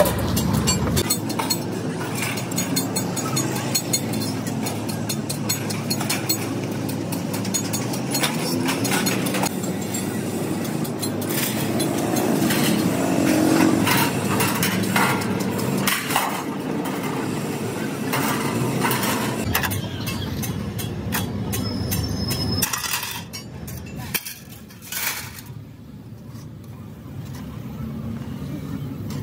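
Large hand shears cutting through sheet steel for a silencer shell: a run of crunching snips and clicks over a steady background din. The din drops away about 22 seconds in, leaving scattered light metal clicks.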